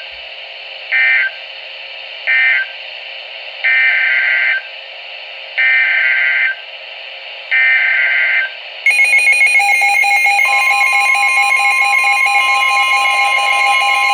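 NOAA Weather Radio emergency alert data bursts: three short screeching end-of-message bursts, then three longer header bursts about two seconds apart, announcing a new warning. About nine seconds in a continuous warning alarm tone starts, and a second steady tone joins about a second and a half later.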